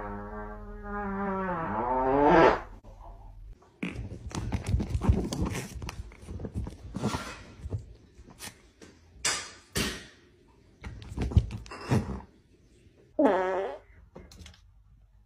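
A person's long, drawn-out fart with a wavering pitch, building to a loud end about two and a half seconds in, then a stretch of irregular sputtering and knocking, and another short pitched fart near the end.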